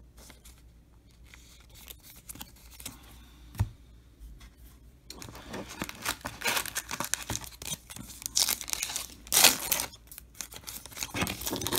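Foil wrapper of a Topps Chrome trading-card pack crinkling as it is handled, then torn open, with the loudest ripping in the last few seconds. The first half is mostly quiet, with one soft knock about a third of the way in.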